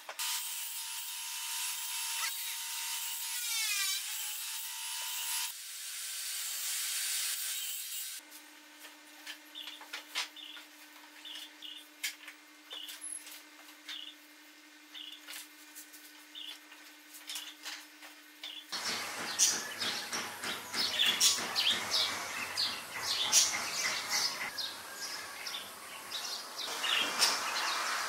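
Wood rubbing and scraping as small wooden parts of a bird house are handled and worked by hand. It is hissy at first, quieter in the middle with light regular ticks, and turns into a louder, dense scratching about two-thirds of the way through.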